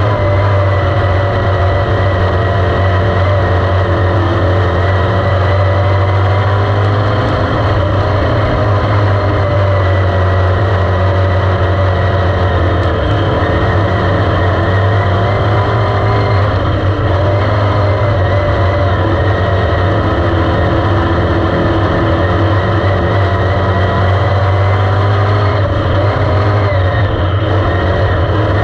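Dirt-track race car's engine running hard at a fairly steady speed, heard loud and close from inside the cockpit as the car laps the dirt oval.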